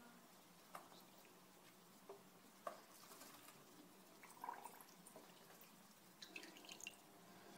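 Faint small splashes and drips of water as a ferret dips its head and paws into a shallow tub of water. A few brief splashes come spread apart, with a quick cluster of them near the end.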